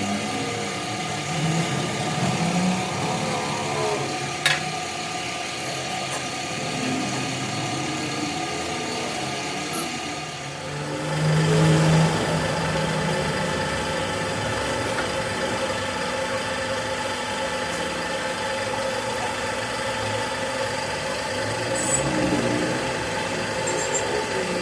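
A motor running steadily with a constant hum and held whine, with sharp clicks about four and a half and ten seconds in. The sound thickens about eleven seconds in, then settles back to the same steady running.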